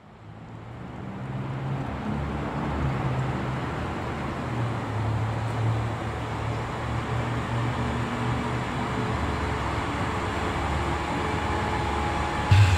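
A rushing wash of noise fades in and swells over a low droning bass that shifts from note to note. A loud musical hit comes in just before the end.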